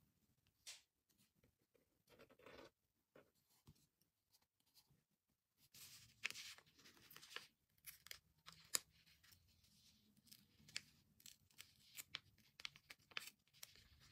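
Faint rustling and crinkling of a glossy sticker sheet being handled, with light clicks and taps as fingers pick at and peel small stickers from the backing; busier from about six seconds in.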